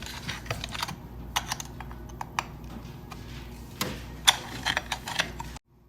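Irregular plastic clicks and knocks as a fitted part is worked loose and taken off a Chefman CraftBrew espresso machine, one knock louder than the rest a little after four seconds in, over a low steady hum; it all cuts off suddenly near the end.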